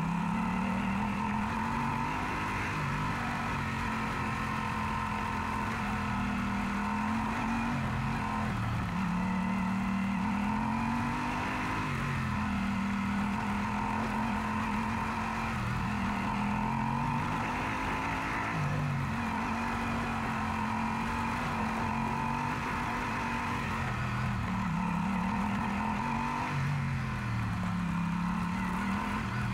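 Yamaha Super Ténéré motorcycle's parallel-twin engine running under way, its pitch rising and falling every few seconds with the throttle, over a steady rush of noise.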